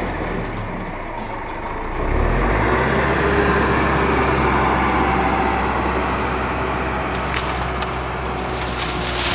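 An engine running steadily with a low hum, growing louder about two seconds in; a sharp knock comes right at the end.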